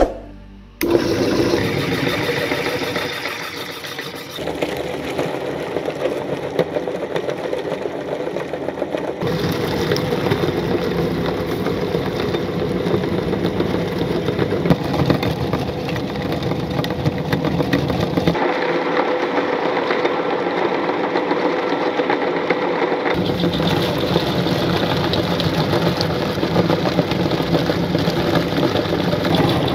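Electric meat grinder starting up less than a second in, then running steadily while its auger forces cooked fish through the grinding plate.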